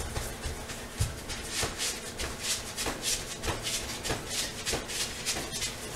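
Rhythmic swishing of clothing and shuffling of feet, about two strokes a second, as a person in a heavy winter coat moves briskly in place to keep warm.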